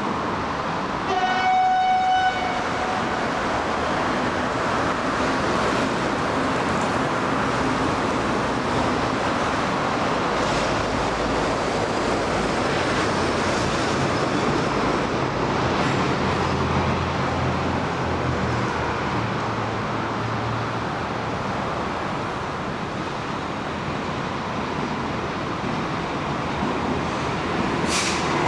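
TU10 narrow-gauge diesel locomotive giving one short, high horn blast about a second in, then approaching with its train over steady background noise. Its low engine hum is heard most in the middle, and a sharp click comes near the end.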